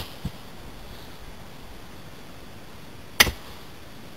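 Sharp, cracking impacts spaced a few seconds apart: one at the start with a duller thump just after it, and a louder one about three seconds in, over a steady hiss.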